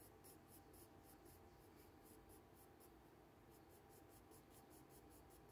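Faint, quick strokes of a coloured pencil scratching on paper, about four a second, with a short pause a little past the middle.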